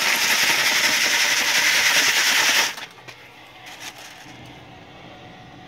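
Chipped rock gravel rattling as it is shaken in a wire-mesh sifting screen: a dense, steady rattle that stops abruptly a little under three seconds in. After that come only a few faint clicks of stones being moved by hand.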